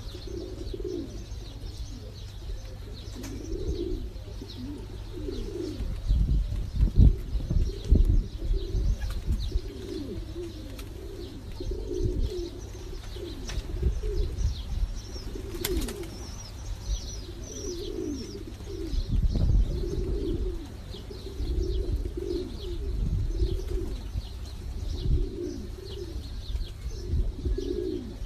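Several domestic pigeons cooing over and over, their calls overlapping. Faint high chirps and a few bursts of low thumps or wing flutters come in at times.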